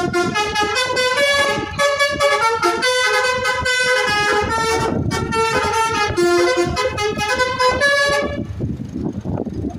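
Basuri telolet horn on a Jetbus 3+ coach playing a quick melodic tune of stepping notes, stopping about eight seconds in, with low rumbling vehicle noise underneath.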